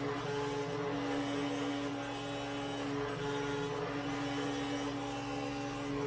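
Genmitsu PROVerXL 4030 V2 CNC router carving a test piece. The spindle runs with a steady hum while the stepper motors' higher tones break off and return every second or so as the gantry moves the bit through the wood.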